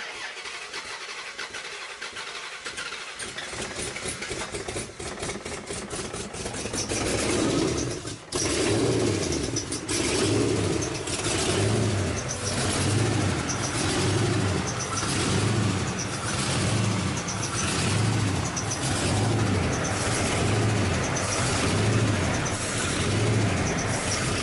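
Chrysler 5.7L Hemi V8 starting and running, then surging: from a few seconds in, the engine speed rises and falls about once a second. The title puts the surge down to an injector or vacuum leak.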